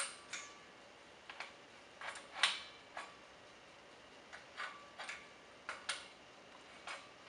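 Wrench clicking against the brass nut of a CO2 regulator as it is tightened onto an aluminium CO2 cylinder: about a dozen sharp metallic clicks at uneven intervals, some leaving a short ring.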